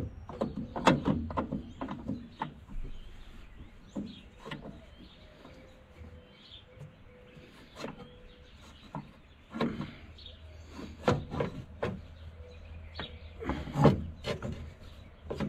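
Irregular metallic clinks, knocks and scrapes of hand tools and tractor brake parts being worked loose and handled, busiest about a second in and again in the last few seconds.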